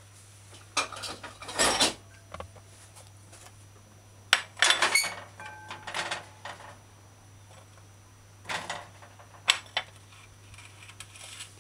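Kitchenware being handled on a countertop: a steel knife, a glass bowl and a ceramic plate clattering and clinking as they are picked up and set down, in a handful of short bursts, some with a brief ring. A faint steady low hum sits underneath.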